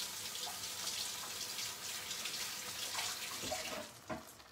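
Kitchen sink tap running while hands are washed under it; the water stops near the end.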